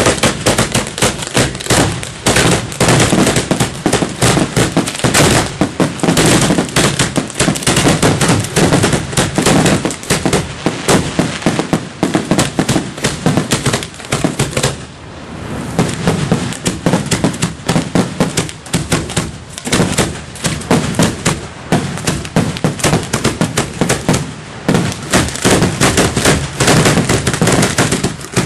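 Fireworks aerial shells fired in rapid succession from mortar tubes at close range: lift charges and bursts blend into a near-continuous stream of loud bangs, easing briefly about halfway through. It is the closing barrage of the display.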